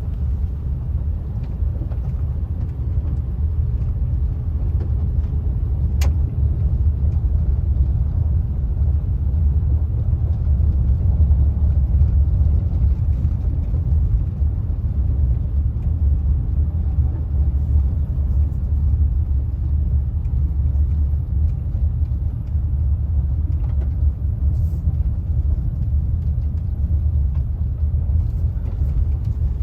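Car driving along a road, heard from inside the car: a steady low rumble of tyre and engine noise, with a faint click about six seconds in.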